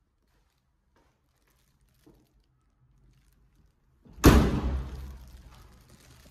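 A door bangs shut a little over four seconds in: a single loud thud that rings on in the tiled corridor for about a second. A few faint clicks come before it.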